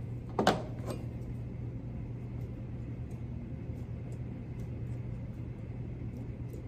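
Small clicks of a metal dental instrument against an implant prosthesis as material is packed into a screw access hole: one sharp click about half a second in, a lighter one just after, then faint ticks, over a steady low hum.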